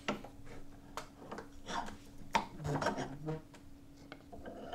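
Handling sounds at a wooden workbench: a hand rubbing across a carved wooden panel, with a few light knocks of wood on wood about a second apart.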